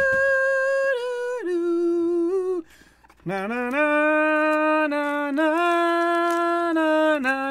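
A man singing a capella without words, holding long notes. A high note drops to a lower one about a second and a half in, there is a short pause near three seconds, then one long lower note is held almost to the end.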